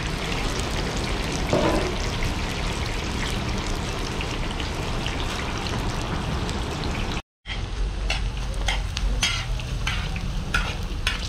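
Steady sizzling of wet rice frying in hot oil in a large kazan, with steam coming off. It cuts off abruptly about seven seconds in. Then comes lighter frying in oil, with a metal ladle clicking and scraping against the kazan as it stirs.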